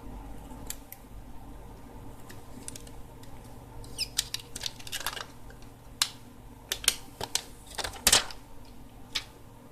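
Small clicks and plastic crackles of protective film and backing being peeled and handled off a replacement smartphone LCD assembly. The clicks are sparse at first, come thicker from about four seconds in, and are loudest near the end, over a steady low hum.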